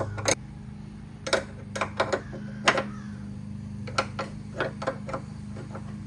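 An 11 mm open-end wrench working a hard-to-reach nut inside a C3 Corvette door: about ten light metallic clicks and clinks at irregular intervals as the wrench is fitted and turned a little at a time, over a steady low hum.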